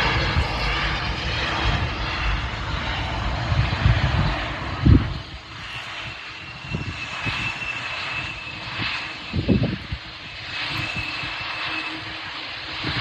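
Airbus jet airliner's engines, loud for about the first five seconds, then dropping to a quieter rush with a steady high whine. Two short low thumps come about five and nine and a half seconds in.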